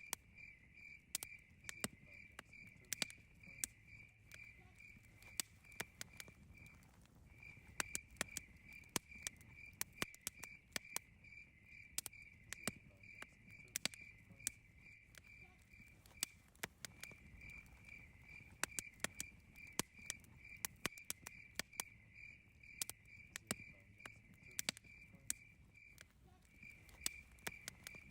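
Campfire crackling, with irregular sharp pops and snaps over a low hiss. Behind it a cricket chirps steadily at about three chirps a second, pausing briefly a few times.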